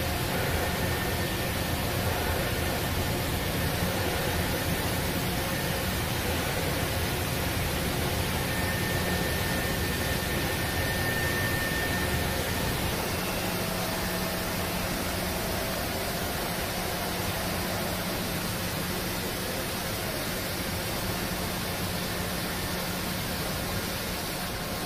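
Pietro Carnaghi ATF-14 TM CNC vertical turn-mill center running under power: a steady hiss over a low hum, with a faint brief whine in the middle.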